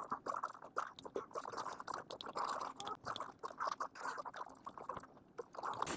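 Close-up eating sounds: a wooden spoon scooping fried rice from a ceramic bowl and chewing, heard as a stream of soft, irregular wet clicks.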